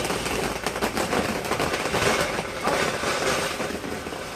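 Crackling firework: a dense, fast run of small pops and crackles that slowly fades toward the end.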